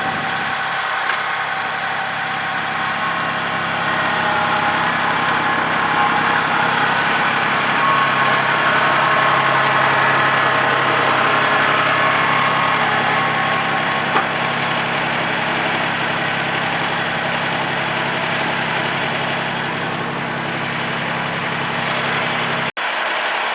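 Engine of the machine carrying the boards on its forks, running steadily with a hum, a little louder from about four to twelve seconds in, with a sudden brief break near the end.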